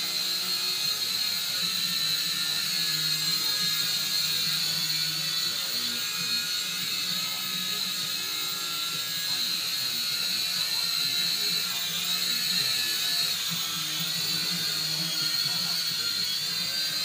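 Syma X5C-1 toy quadcopter flying, its four small coreless motors and propellers giving a steady high whine whose pitch wavers a little as it manoeuvres.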